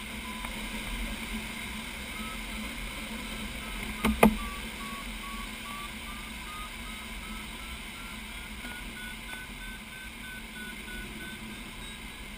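Glider's audio variometer beeping in a run of short, evenly repeated tones whose pitch slowly rises and then eases a little; a beeping vario signals that the glider is climbing in lift. Under it is the steady rush of air in the cockpit, and two sharp knocks sound about four seconds in.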